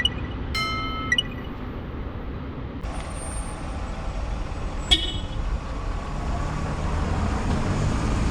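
Railroad crossing warning signal sounding in repeated pitched tones about once a second, which stop after about a second. Then a single sharp clang near the middle and a low rumble building toward the end.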